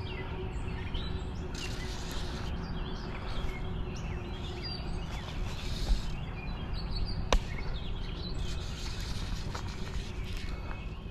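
Outdoor ambience: a steady low rumble with birds chirping, and a single sharp click about seven seconds in.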